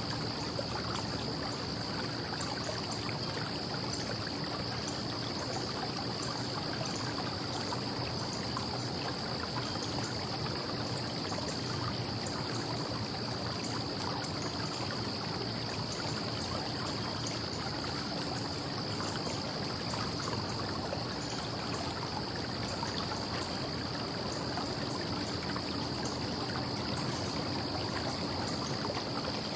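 Steady, unbroken wash of distant traffic noise, with a constant high-pitched tone running over it.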